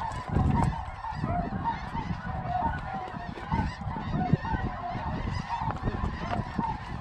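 A large flock of snow geese calling overhead: a constant din of many overlapping short, high honks, over a low rumble of wind on the microphone. A single sharp knock a little past four seconds in.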